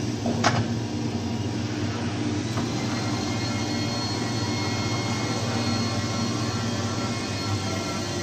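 A 3-axis CNC pipe bending machine running through a bend on steel tube, with a steady mechanical hum. There is a click about half a second in and a faint high whine in the middle.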